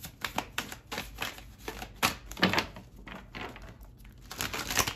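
A deck of tarot cards shuffled by hand: a quick, irregular run of card flicks and slaps, with a louder snap about two seconds in and a busy cluster near the end.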